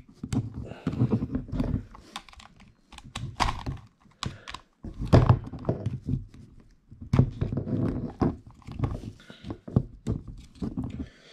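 Hands working a hard plastic ankylosaurus toy: irregular plastic clicks, knocks and rubbing as it is fiddled with and a small part is pushed at.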